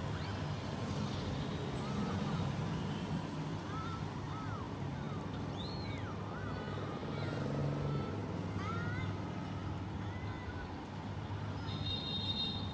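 Steady low background rumble with a few short, high, sweeping chirps scattered through it, and a brief high buzz near the end.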